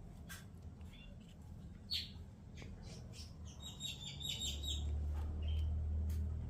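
Pet birds chirping in short calls and clicks, with a rapid chittering trill about halfway through. A steady low hum comes in from about two-thirds of the way in.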